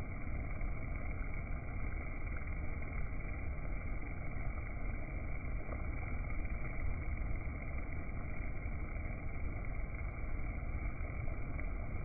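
Honeybees at a hive entrance fanning their wings to ventilate the hive, their buzzing slowed down with the slow-motion footage into a steady, low, even rumble.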